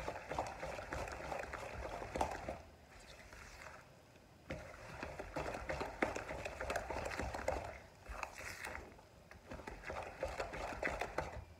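A spoon beating thick grated-cassava cake batter in a bowl: a rapid run of small knocks and scraping against the bowl, in three bouts with short pauses about three and nine seconds in.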